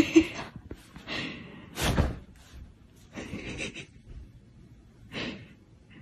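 A person's loud gasping breaths, about five in a row, the first and loudest right at the start.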